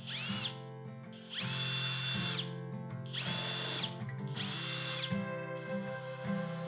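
A power drill run in four short bursts, each spinning up with a rising whine and then holding steady for about a second.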